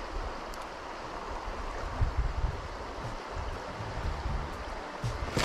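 River water flowing over a riverbed in a steady rush, with irregular low rumbling underneath.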